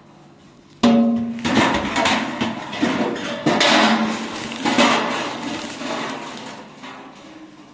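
Large thin aluminium tray clanging about a second in, with a brief ring, followed by a few seconds of irregular clattering as it is handled, fading away.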